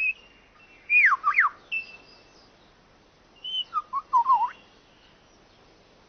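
Superb lyrebird singing clear whistled notes: two quick downward-sweeping whistles about a second in, then a short run of warbling notes around four seconds in.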